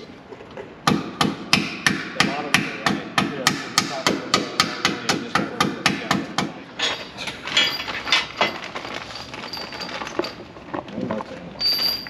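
A hammer tapping rapidly and evenly, about four strikes a second for some six seconds, then stopping. Softer irregular knocks and handling noise follow.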